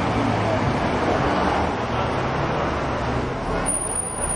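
Slow city street traffic: car engines running at low speed as vehicles creep past, with a steady low hum.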